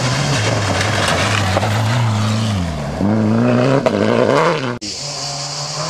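Rally car engine at speed, its pitch falling as it comes off the throttle, then climbing again as it accelerates. The sound breaks off abruptly for an instant near the end, and the engine then carries on at a steady pitch.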